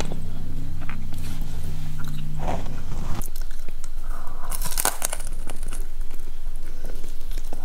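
Close-miked crunching bites and chewing of crispy fried food, with repeated sharp crackles that are thickest near the middle. A steady low hum runs underneath for the first three seconds, then stops.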